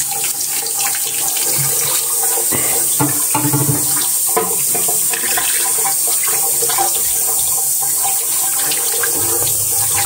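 Water running steadily from a garden hose and splashing over a dirt-caked rock and hands into a concrete basin as the rock is rinsed, with small irregular splashes as it is turned under the stream.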